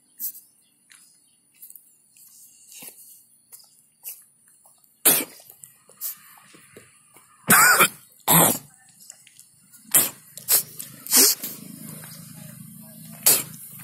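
Someone close to the microphone coughing in short sharp bursts, in bouts of two and three, over the second half. A low steady hum joins about ten seconds in.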